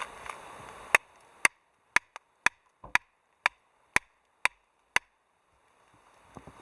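Steady rhythmic chopping: a blade striking down onto wood about twice a second, nine sharp strikes in a row, with a couple of lighter taps between them.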